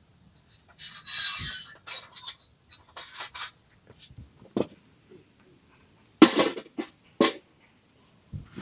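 Camp cookware and gear being handled: irregular light clinks, knocks and rustles, with a longer rustle about a second in and two sharper knocks in the second half.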